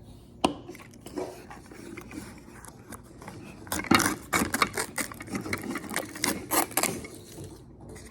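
Small toy packaging being handled and opened by hand: a sharp click about half a second in, then a dense run of rustling and scraping from about four to seven seconds in.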